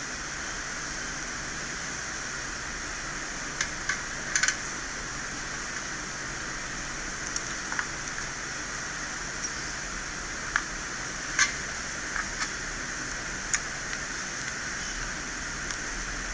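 Steady fan-like hiss of workbench equipment, with about a dozen light, sharp clicks and taps scattered through it, typical of small metal tools such as tweezers or a scraper working on a phone logic board.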